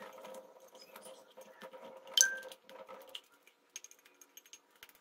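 A knife stirring sticky slime in a glass bowl: soft scraping and small taps, with one sharp clink of the blade on the glass about two seconds in that rings briefly.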